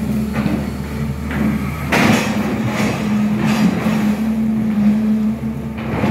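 SANY hydraulic excavator's diesel engine running under load with a steady drone, while the bucket scrapes and digs through broken rock and mud at the bottom of a well pit. There are several scraping bursts, the loudest about two seconds in.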